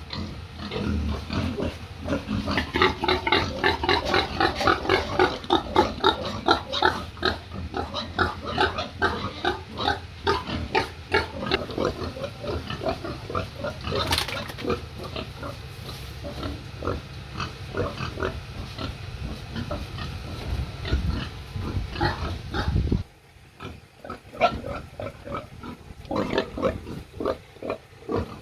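Many pigs grunting at once, a dense run of short overlapping calls. A low steady hum underneath cuts off suddenly near the end, leaving the grunts thinner and quieter.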